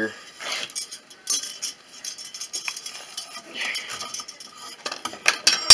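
Steel snare cable and small metal trap hardware clinking and rattling in the hands as a cable loop is readied for swaging, with a sharp metallic click near the end.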